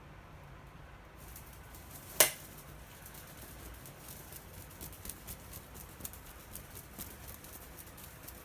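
A cat playing with a toy: one sharp knock about two seconds in, then a run of light, irregular ticks and rustles as the toy is batted about.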